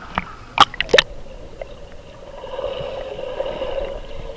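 Pool water splashing against a waterproof action camera at the surface, with a few sharp slaps in the first second. About two seconds in, a muffled underwater rushing and bubbling swells as the camera goes under, then stops just before the end.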